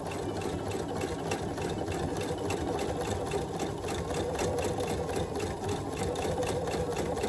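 Electric household sewing machine running steadily, its needle stitching a seam through trouser fabric in a fast, even rhythm.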